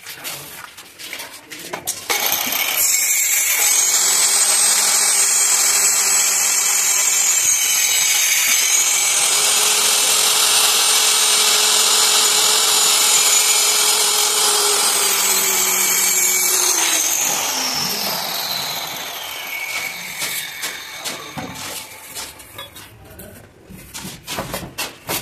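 Electric hand planer running and shaving the edge of a wooden window frame, a loud steady whine that dips slightly under load partway through. About seventeen seconds in it is switched off and winds down with a falling whine, followed by a few light knocks.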